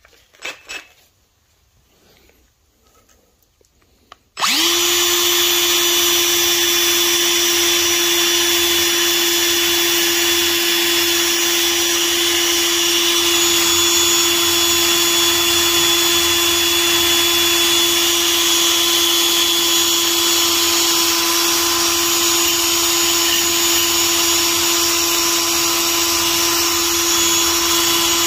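Cordless drill spinning a wire brush wheel around the threads of a brake caliper bracket bolt clamped in a bench vise, scrubbing the threads clean. It starts suddenly about four seconds in and runs at one steady speed with a steady whine.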